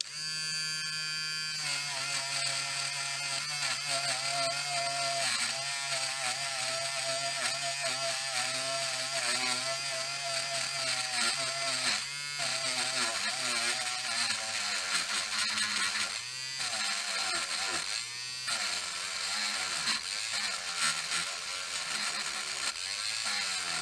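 Small electric grinder with a wire-brush attachment running and scrubbing rust deposits off the steel plates of a car door lock. Its whine wavers and dips several times as the brush is pressed onto the metal. It is low-powered and takes off the thick deposits only with difficulty.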